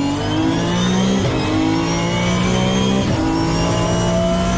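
Car engine accelerating through the gears, its pitch climbing steadily and stepping at gear changes about a second and three seconds in.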